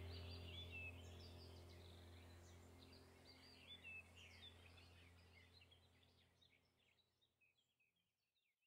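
Faint birdsong, short chirps and whistled glides repeated over a low steady hum, all fading away gradually near the end.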